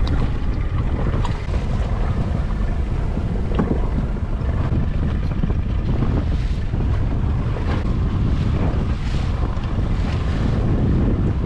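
Wind buffeting the microphone over the rush of sea water along the hull of a small moving boat, with a few faint knocks.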